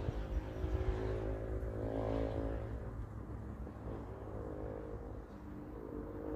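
A motor vehicle's engine running over a low rumble. Its pitch rises and eases back down about two seconds in, then fades, and it comes back near the end.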